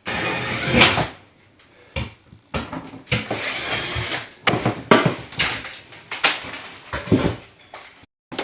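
Irregular knocks, scrapes and creaks of wooden interior fittings being pried and knocked apart with hand tools, in a string of short bursts with brief gaps.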